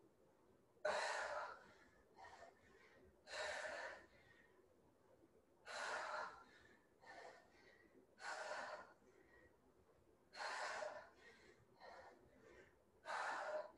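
A woman breathing hard under exertion during dumbbell squat-to-press reps: forceful exhales about every two and a half seconds, each about half a second long, with shorter, fainter breaths in between.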